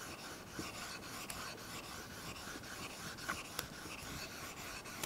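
Coarse 220-grit Norton water stone, wet with water, rubbed by hand across the slotted metal top plate of a magnetic sine chuck: a faint steady scraping rasp with a few light clicks, the plate being flattened.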